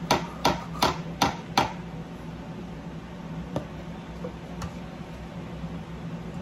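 Metal spoons knocking against a stainless steel mixing bowl while scooping muffin batter, about five quick knocks in the first second and a half, then two single clinks after a pause.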